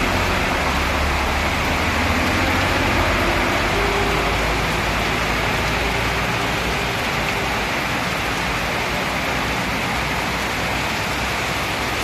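Heavy rain pouring steadily onto a wet street, an even hiss. Passing vehicles add a low rumble through the first half, then the rumble eases.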